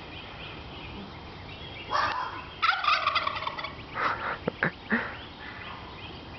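Wild turkey gobbling: a loud, rapid rattling call about two seconds in, with a second shorter call around four seconds, then a few short sharp sounds.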